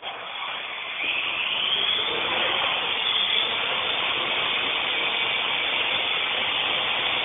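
Parrot AR.Drone quadcopter's electric motors and propellers spinning up for takeoff, with a rising whine about a second in as it lifts off. It then holds a steady, loud whir while hovering.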